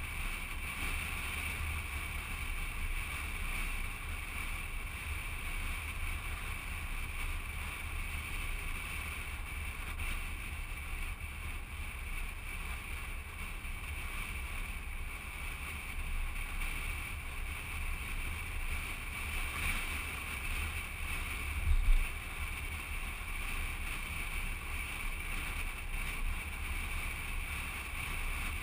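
Steady wind rush and low road rumble of a moving car, picked up by a camera mounted on the car's exterior, with one short thump about three quarters of the way through.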